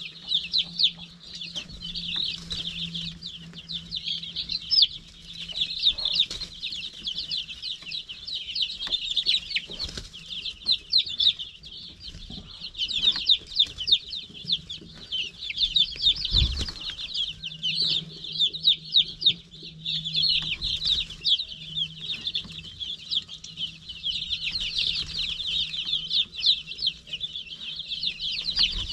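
A brooder full of baby chicks peeping continuously, a dense chorus of many short high-pitched chirps, with a faint low steady hum underneath.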